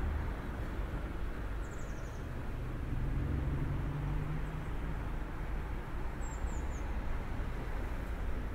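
Street ambience: a steady low hum of distant road traffic, with short high bird chirps about two seconds in and again about six seconds in.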